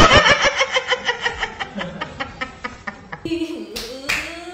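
A man laughing loudly and hard, a fast, even run of 'ha-ha' bursts that tails off over about three seconds.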